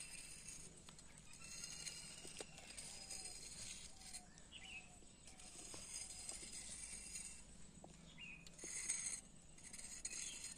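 Faint outdoor background with scattered bird chirps and short calls.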